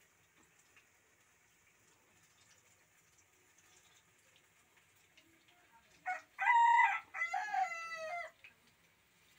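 A rooster crowing once, about six seconds in: one drawn-out call in several parts, its last part falling in pitch. Before it there is only faint room tone.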